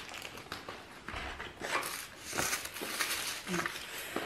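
Plastic packaging crinkling and fabric rustling in irregular bursts as a sports legging is taken out and handled.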